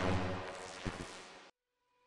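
Title-intro sound effect: a broad whooshing swell with a low hum fading away, a sharp hit about a second in, then an abrupt cut to silence.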